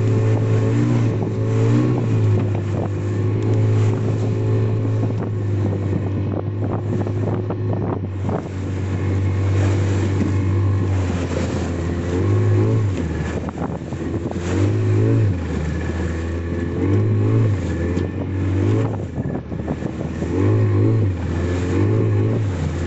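Fishing boat's engine running steadily, its pitch rising and falling as the throttle changes, with scattered knocks.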